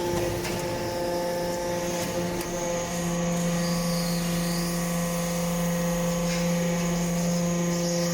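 Hydraulic metal-chip briquetting press running: a steady mechanical hum with a few faint clicks.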